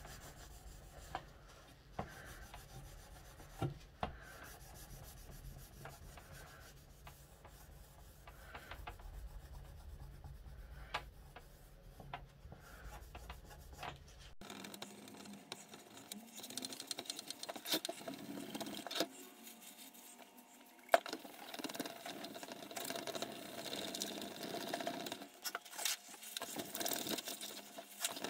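Cotton wool soaked in Brasso rubbing over the painted surface of a longcase clock dial to lift the grime: faint, scratchy scrubbing with a few light taps, busier and more continuous in the second half.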